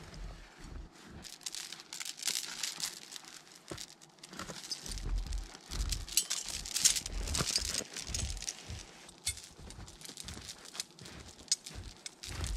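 Boots crunching through deep snow, with a steel log chain clinking and rattling as it is handled and carried.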